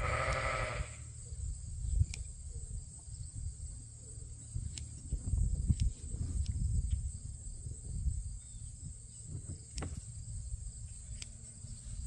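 A sheep bleats once, for about a second, with a quavering pitch. Then come scattered sharp snips of hand blade shears cutting a ram's wool, over a low rumble.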